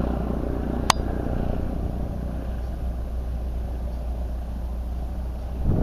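Steady low rumble with an engine-like drone, and one sharp click about a second in.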